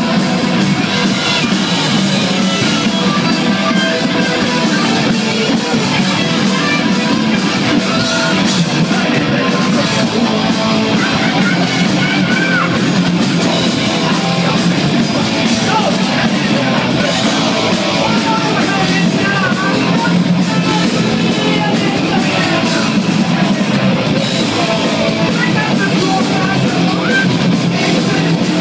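Heavy metal band playing live and loud, with distorted electric guitars and a singer shouting into the microphone.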